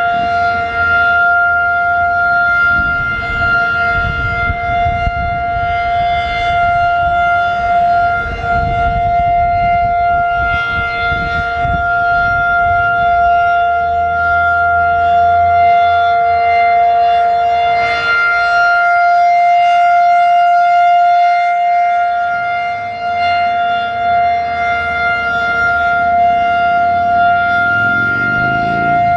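Federal Signal 2001-DC outdoor warning siren sounding its Full Alert signal: a loud, steady two-pitch wail held at a constant pitch, its level swelling and fading a little. Wind buffets the microphone in gusts during the first half.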